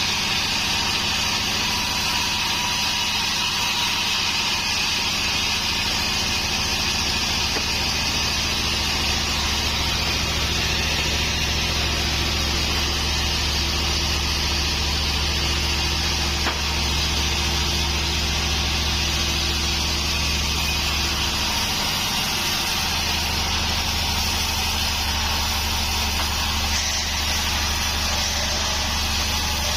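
Pandan band sawmill running steadily while sawing a waru (sea hibiscus) log into beams, with a strong low hum from its motor. The hum drops briefly a little over two-thirds of the way through, then picks up again.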